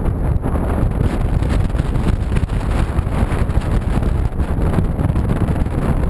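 Strong wind buffeting the microphone: a loud, continuous low rumble that rises and falls with the gusts.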